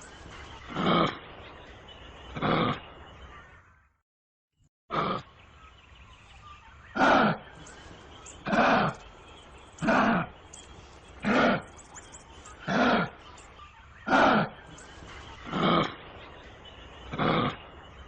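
Kangaroo grunting calls, short and evenly repeated about every one and a half seconds, with a second of silence about four seconds in.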